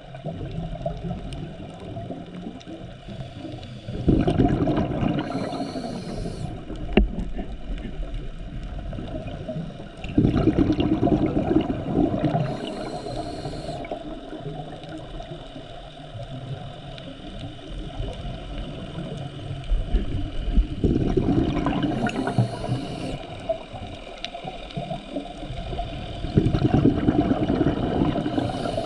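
Scuba diver breathing through a regulator underwater: four bubbling exhalations about every six seconds, each with a short high hiss, over a steady underwater background.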